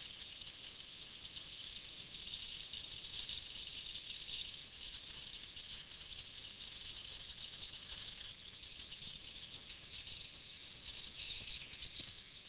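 Taig CNC mill making its final cut: the spindle-driven cutter running steadily through the workpiece under stepper-motor feed, heard as a steady high-pitched hiss.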